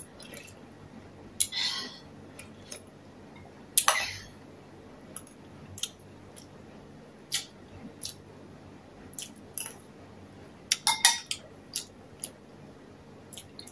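Metal spoon clicking and scraping against a ceramic bowl and pot, with a few brief wet eating sounds of soup being sipped and chewed. The clicks are short and scattered, with a small cluster near the end.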